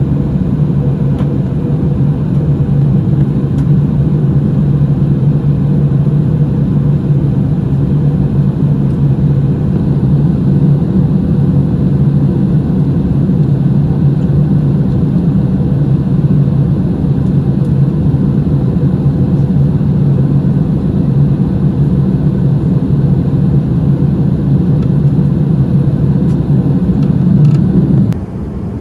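Steady, loud cabin rumble of an Airbus A380-841 in cruise flight, airflow and engine noise heard inside the cabin at a window seat over the wing. It drops sharply to a quieter level just before the end.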